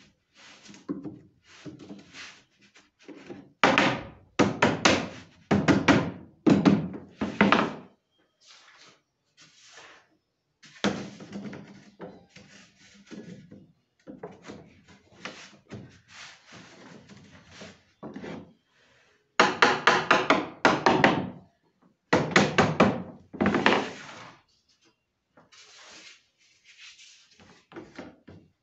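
Tongue-and-groove cedrinho ceiling boards knocking and clattering against each other and the wooden jig as they are pushed into place by hand. The knocks come in quick runs, with three louder bursts and quieter scattered knocks between them.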